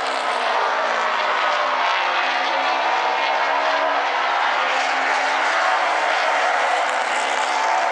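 Baby Grand race cars' engines running at racing speed around a paved oval: a loud, steady wash of engine noise whose pitch wavers slightly as the cars lap.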